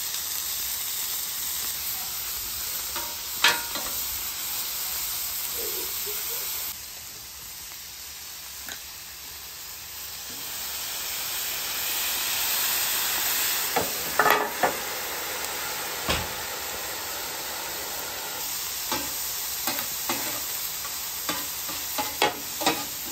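Sausage, peppers, onions and potatoes sizzling on a hot flat-top griddle, a steady frying hiss broken by sharp scrapes and taps of a metal spatula on the griddle plate. About halfway through the sizzle swells as liquid is squirted from a squeeze bottle onto the hot surface and turns to steam.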